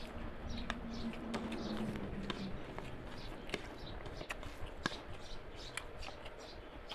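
Close-up eating sounds: wet squishing of rice and curry being kneaded by hand, with chewing and lip smacks giving a string of sharp clicks. A faint low hum runs for the first two seconds.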